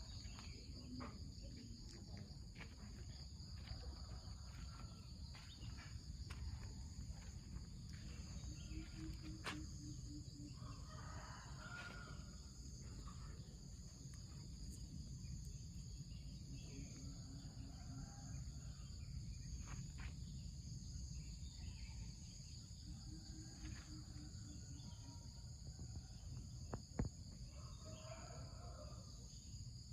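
Steady high-pitched chorus of insects, with birds calling now and then over it and a low pulsing call heard three times.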